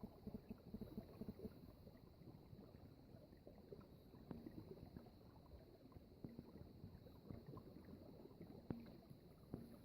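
Faint trickling and gurgling of water running in a frozen stream, with small irregular plinks and drips.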